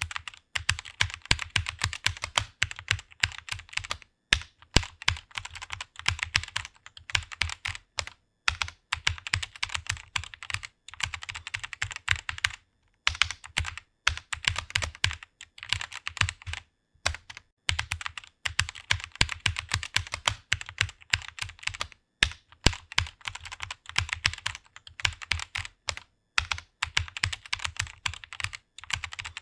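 Fast typing on a computer keyboard: rapid key clicks in runs of a few seconds with short pauses between them.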